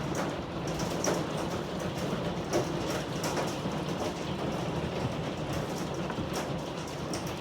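Hail and heavy rain pelting down: a steady rushing noise with many sharp, irregular ticks of hailstones striking hard surfaces.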